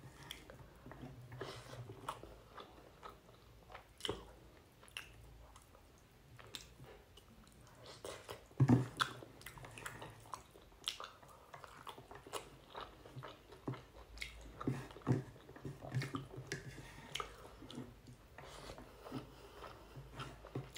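Close-up eating sounds of a person chewing rice and fish curry eaten by hand: irregular soft wet clicks, lip smacks and chewing, with a few louder smacks.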